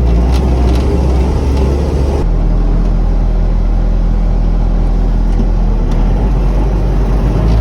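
Bobcat S650 skid loader's diesel engine running, heard from inside the cab; its note shifts about two seconds in and again near six seconds.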